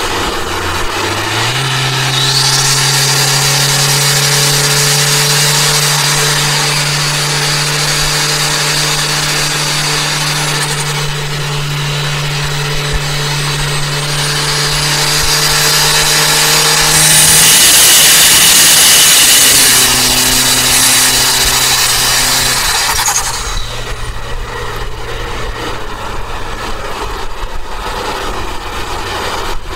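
Turbocharged Toyota Avanza engine pulling at steady high revs, with a high whistle and rushing noise above it. The rushing swells about two-thirds through, and a few seconds later the engine note drops and quietens.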